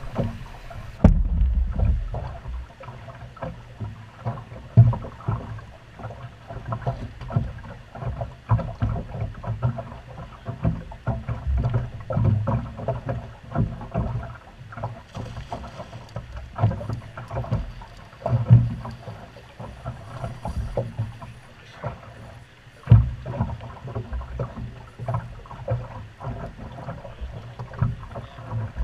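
Water slapping against a drift boat's hull, with many irregular knocks and thumps in the boat.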